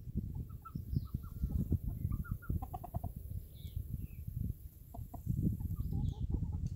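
Chickens clucking, scattered short clucks with a quick run of them about two seconds in, over a louder, uneven low rumble.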